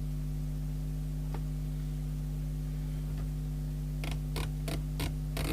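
Steady low hum, then from about four seconds in a run of light clicks, roughly three a second: the rotary channel selector switch of a Rotel RVC240 CB radio being turned through its detents after cleaning.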